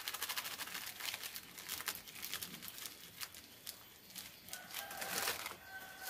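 Pestle grinding and crushing shallots, chilies and salt in a clay mortar (cobek), quick gritty scraping strokes, busiest in the first second. Near the end a plastic bag crinkles as it is handled.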